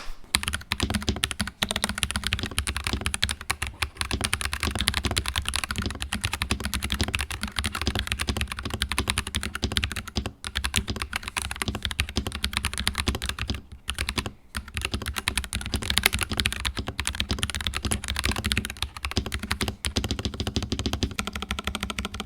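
NuPhy Halo75 mechanical keyboard with Rose Glacier tactile switches being typed on in quick, continuous keystrokes, with brief pauses about ten seconds in and again around fourteen seconds.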